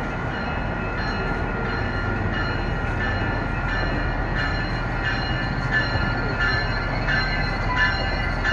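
Nippon Sharyo diesel multiple unit commuter train approaching and pulling into a station: a steady low rumble of engine and wheels, growing slightly louder as it nears. Thin high ringing tones sound over it and grow stronger toward the end.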